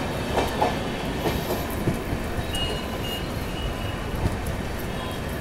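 Passenger train running at speed, heard close to the side of a coach: a steady rumble of wheels on rail, with a few sharp clacks over rail joints in the first couple of seconds and a faint, thin high squeal around the middle.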